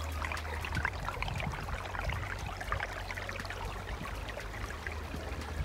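A small shallow stream trickling and babbling over stones and grass stems between snow banks: a steady gurgle full of small splashes.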